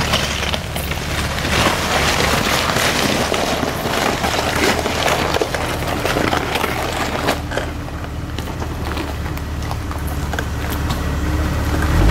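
Jeep Wrangler's engine running steadily under load as it crawls up a loose rocky hill, with tyres crunching over stones and many small clicks and knocks of rocks shifting under them.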